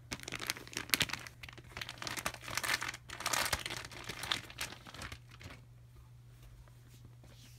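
Plastic wrapping crinkling as it is handled, a run of dense crackling that stops about five and a half seconds in.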